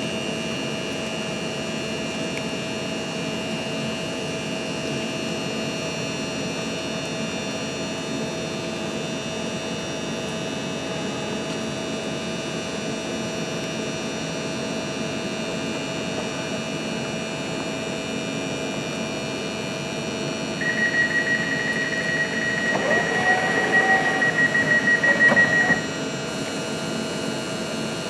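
Passenger train standing at a platform, its onboard equipment humming steadily. About twenty seconds in, the door-closing warning beeps rapidly at one high pitch for about five seconds while the sliding door moves shut, and both stop together as the door closes.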